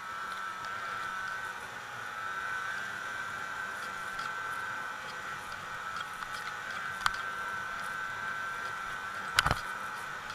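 Snowmobile engine running steadily at trail-riding speed, a steady whine of even pitch. A short click comes about seven seconds in and a louder knock near the end.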